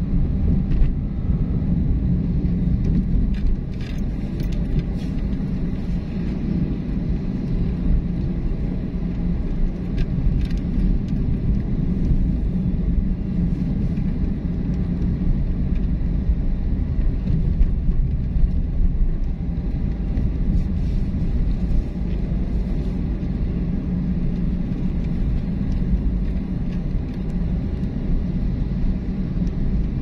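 Car driving along a road: a steady low rumble of engine and tyres.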